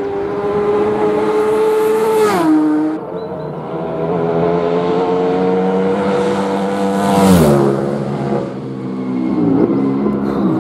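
Racing motorcycles at full throttle passing close one after another, each high-revving engine note dropping sharply in pitch as the bike goes by. Two loud passes come about 2 and 7.5 seconds in, and a fainter third near the end.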